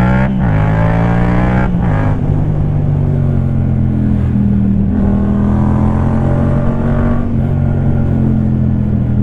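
Yamaha MT-07's parallel-twin engine through a Black Widow carbon aftermarket exhaust, under way: the revs climb and drop abruptly twice in the first two seconds, like quick upshifts, then hold at a steady engine speed.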